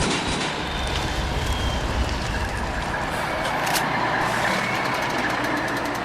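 Heavy vehicle engines running hard: dense steady engine noise with a whine that climbs slowly in pitch, a sharp crack about four seconds in, and a fast rattle of clicks near the end.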